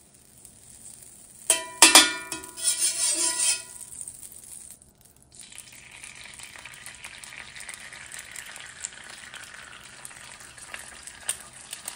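A few sharp, ringing clinks in the first few seconds. About five seconds in, an egg poured into a buttered 1920s Wagner cast iron skillet over low heat starts sizzling softly and steadily, with small pops and ticks.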